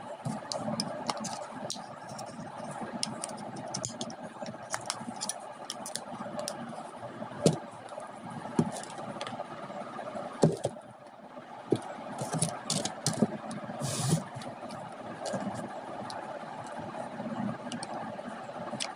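Irregular knocks, clicks and scraping from hand work on an old lead-acid battery's casing, over a steady hum.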